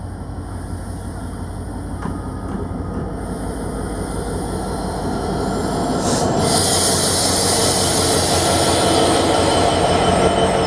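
EMD GT42AC diesel-electric locomotive running as it pulls into the station, its engine note growing louder as it approaches. From about six seconds in it passes close by, and loud wheel-on-rail noise takes over, with a faint high squeal from the wheels near the end.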